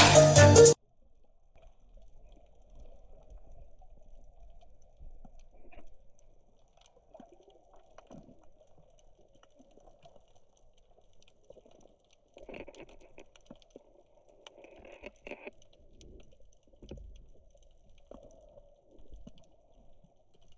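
Background music cuts off abruptly under a second in, leaving faint underwater sound: low rumbles with scattered small clicks and crackles.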